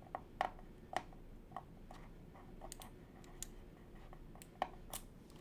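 Light, irregular clicks and taps from a Keywalker68 mechanical keyboard being handled, with a few sharper clicks standing out.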